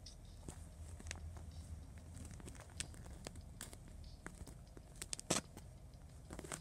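Light scuffling, taps and rustles of two kittens play-fighting on soft bedding, their paws patting and scratching the fabric, with a sharper tap a little past five seconds in.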